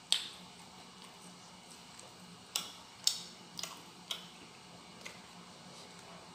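Eating rice and fried fish by hand: about half a dozen short, sharp clicks and smacks at uneven intervals, over a faint steady low hum.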